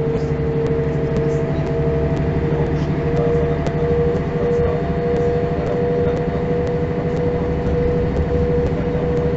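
Mercedes-Benz O405 city bus heard from inside while under way: its rear-mounted six-cylinder diesel runs at a steady pitch, with a steady whine above the low rumble and faint ticks and rattles.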